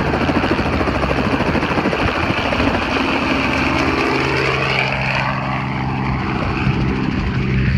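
Robinson R44 helicopter flying low overhead and away, its rotor chop and engine running steadily and loud. The pitch slides down as it passes over, about three to five seconds in.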